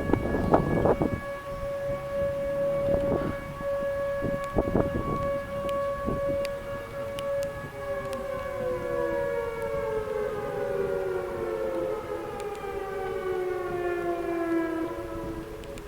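Outdoor tornado warning sirens sounding a steady wail, then winding down from about halfway through, with several tones falling in pitch. A few short rushing bursts of noise come in the first five seconds.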